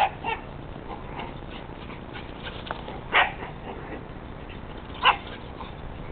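Dog barking during play: a few short, sharp barks, two in quick succession at the start, then one about three seconds in and another about five seconds in.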